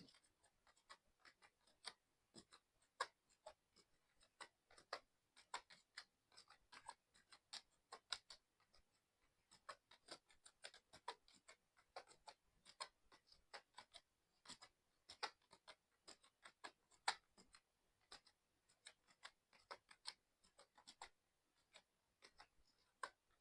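Fast typing on a mechanical keyboard: rapid, irregular key clicks several times a second, with a couple of brief pauses.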